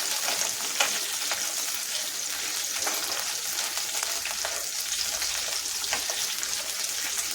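Chopped garlic and ginger sizzling in hot oil in a pan, with short clicks now and then as a spatula stirs against the pan.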